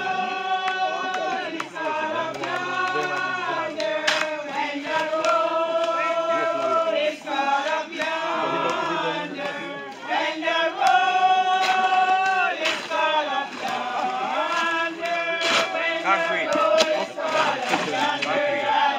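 A group of men and women singing a hymn together, holding long notes, with a few sharp knocks cutting through now and then.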